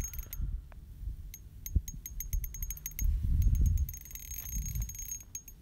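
Small spinning reel's drag clicking in irregular bursts as a big hooked fish pulls line against light 2 lb test line.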